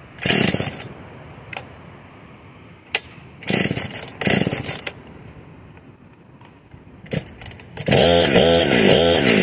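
Gas chainsaw being pull-started: a few short cranking pulls, then near the end the engine catches and keeps running, its pitch wavering up and down.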